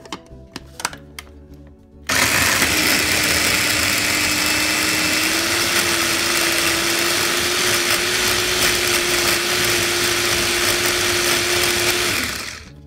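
Small electric food processor (mini chopper) mincing onion, ginger, garlic and green chillies: after a few light clicks, the motor starts suddenly about two seconds in and runs loud and steady for about ten seconds, its hum rising a little in pitch partway through, then winds down and stops near the end.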